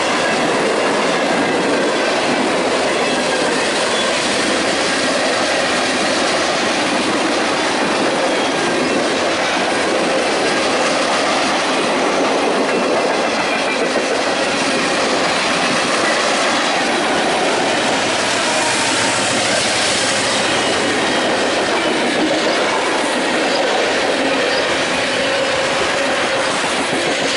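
Union Pacific manifest freight train's covered hoppers and tank cars rolling past close by: a steady clatter of steel wheels over the rails.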